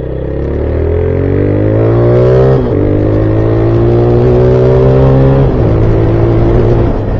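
Motorcycle engine accelerating while riding: its pitch climbs, drops sharply at a gear change about two and a half seconds in, climbs again more slowly, then falls as the throttle eases near the end.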